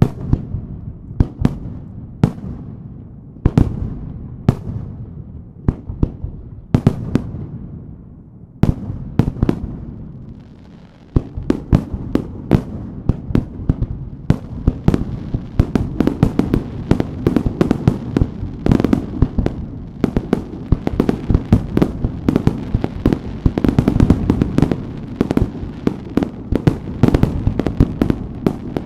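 Aerial firework shells going off in the sky. Separate bangs echo for the first ten seconds or so, then from about eleven seconds a dense, rapid barrage of many shells crackles almost without a break.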